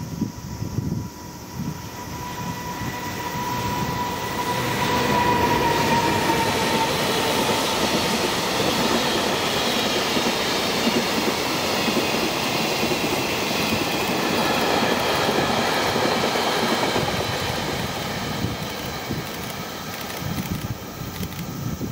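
A freight train of container wagons and tank wagons rolling past on an electrified line. A steady tone dips in pitch about six seconds in. The train's rolling noise is loudest through the middle and eases off near the end as the train draws away.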